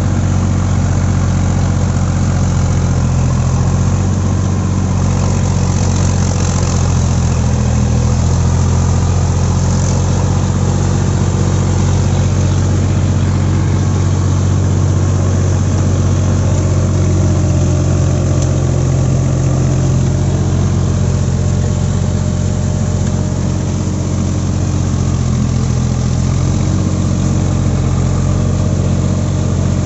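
Sonalika DI 42 RX tractor's diesel engine running steadily under load, heard from the driver's seat, with a slight dip in level a little past the middle.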